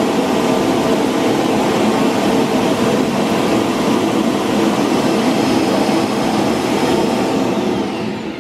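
Lydsto R1 self-emptying dock's suction motor running loud and steady, pulling the dust out of the robot vacuum's bin into the dock. It starts to wind down near the end.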